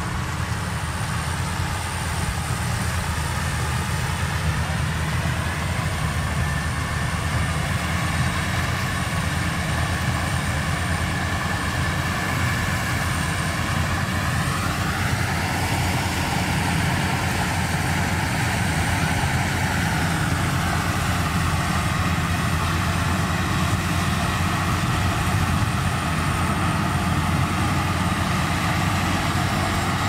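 Crawler combine harvester running as it cuts rice: a steady engine and threshing drone with a whine that rises in pitch about halfway through, holds for several seconds, then falls back.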